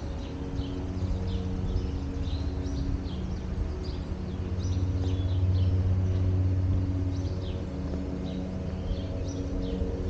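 Songbirds chirping in quick short notes over a steady low mechanical hum. The hum holds one pitch and swells a little about halfway through.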